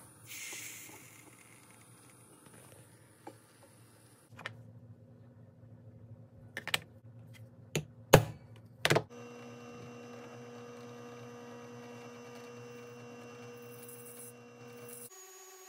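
About four sharp metal taps, the loudest about 8 seconds in, as a small hammer strikes a center punch on the steel razor blank. A drill press motor then runs with a steady multi-tone hum while drilling the blade, stopping abruptly near the end.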